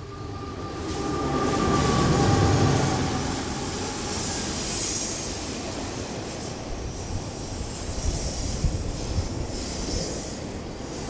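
Train crossing a steel truss railroad bridge. The rumble swells over the first two or three seconds, a high wheel squeal comes about four to five seconds in, and then it runs steadily with scattered clicks.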